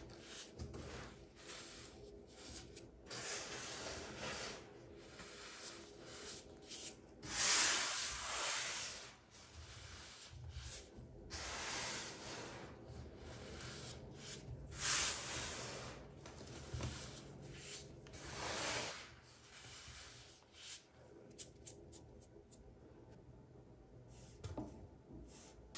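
Hands crushing, rubbing and crumbling a heap of black-dyed baking soda powder: soft gritty crunching and sifting hiss in uneven bursts, with a few louder swells as handfuls are squeezed and let fall. Near the end it goes quieter, with a few light clicks.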